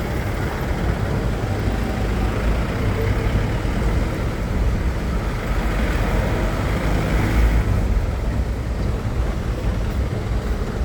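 Steady rush of fast river water, with a continuous low rumble of wind buffeting the microphone.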